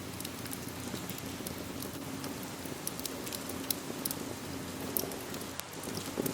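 Wood fire crackling with scattered sharp pops over a steady hiss of rain; the sound dips briefly near the end.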